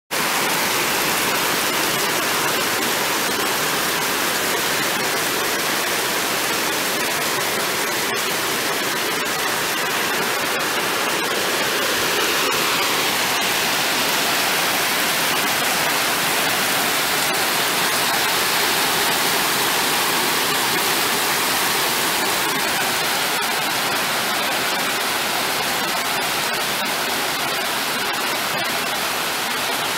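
Heavy rain pouring down in a steady, unbroken hiss, with occasional faint ticks of drops.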